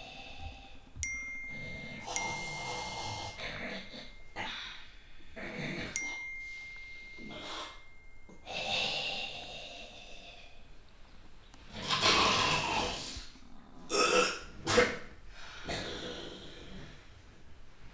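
Vocal noises from a person waking on a sofa, heavy breaths and grunts, loudest about twelve and fourteen seconds in. A steady electronic beep sounds three times in the first half, the last one held about two seconds.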